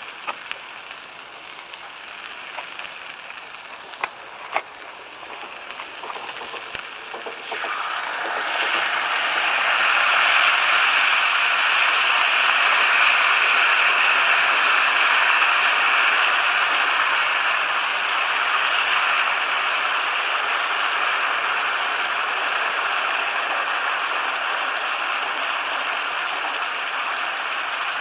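Food sizzling in a pan over pellet embers, with a few light clicks of utensils. The sizzle swells sharply about eight seconds in, as if more food or liquid has hit the hot pan, and stays loud and steady.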